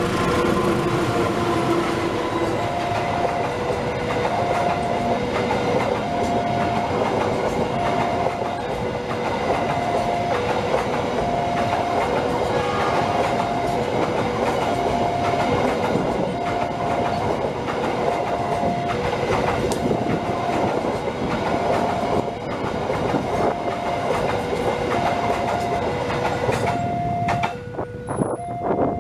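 Train passing a level crossing at close range: a KAI CC 206 diesel-electric locomotive followed by loaded flat wagons, with the wheels clattering over the rail joints. Over it the crossing's electronic warning signal sounds a steady two-tone alternation, changing tone about every second. The train noise drops away near the end, leaving the warning tones.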